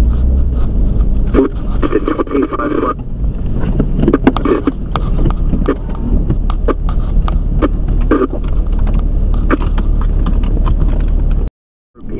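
Rain ticking on a car's windshield and body in many quick taps, with a windshield wiper scraping across the wet glass over a steady low rumble. The sound cuts out abruptly for about half a second near the end.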